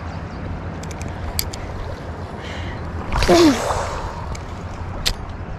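Steady rushing noise of the river current around the kayak, with a few sharp clicks and, about three seconds in, a short loud vocal sound falling in pitch.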